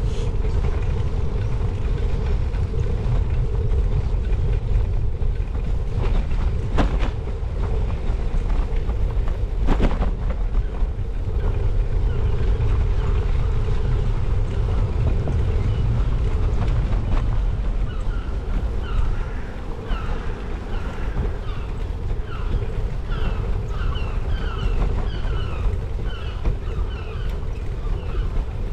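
Bicycle ridden over block paving: a steady rumble of wind on the microphone and tyres on the paving stones, with two sharp knocks about seven and ten seconds in.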